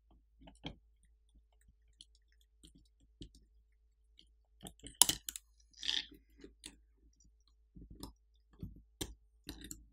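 Sparse, irregular clicks and taps of a metal pry tool against a smartphone's frame and display as the screen is pried free of the adhesive under its cable. The sharpest click comes about five seconds in.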